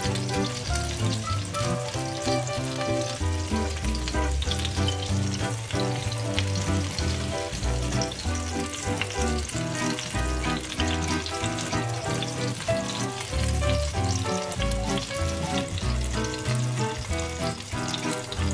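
Small batter pancakes frying in olive oil in a pan, a steady sizzle, under background music with a moving bass line.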